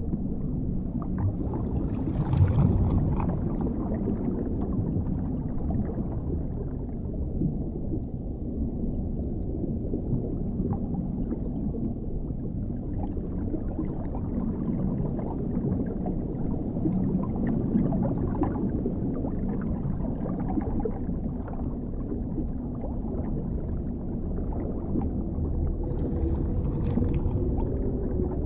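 Underwater ambience: a deep, steady low rumble that swells slightly and eases, with faint scattered ticks above it.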